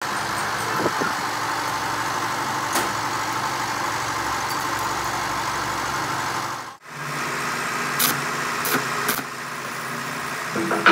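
Steady mechanical hum of a running machine, with a few light metallic clicks as steel welding rods are set down on a steel plate in the second half.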